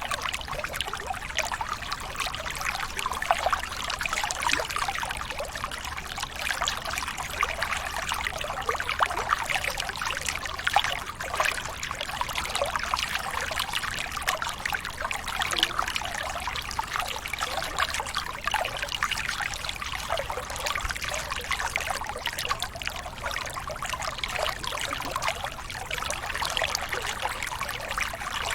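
Running water trickling and splashing steadily, a dense patter of small splashes.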